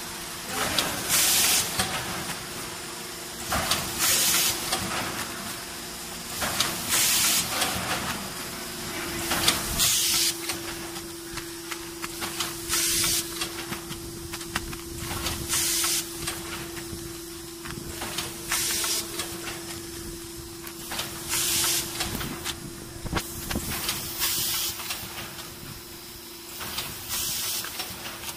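Vertical form-fill-seal packaging machine running through its bag cycle. A short burst of air hiss comes about every three seconds, once per bag, over a steady hum.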